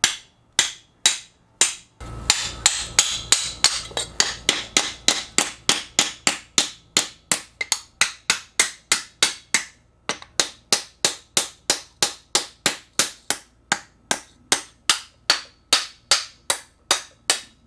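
Claw hammer repeatedly striking a braze-welded aluminum joint lying on a concrete floor: an even run of sharp metal-on-metal strikes, about two to three a second. It is a hammer strength test of the brazed weld, and the aluminum bends while the weld holds.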